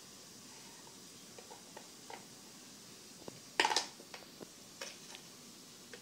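Plastic spoon clicking and scraping against a plastic tub while salt is scooped out: a few light clicks and one louder clatter about three and a half seconds in.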